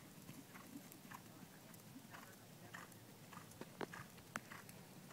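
Faint hoofbeats of a ridden horse on sand arena footing: soft, unevenly spaced thuds and ticks, with two sharper clicks about four seconds in.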